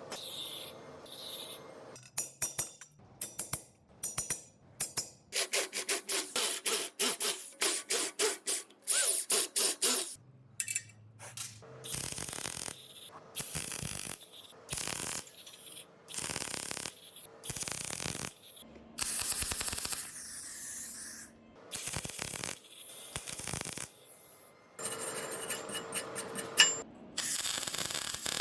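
Repeated short rubbing or scraping strokes on a workpiece, coming in quick runs of about two or three strokes a second and then in longer, slower strokes.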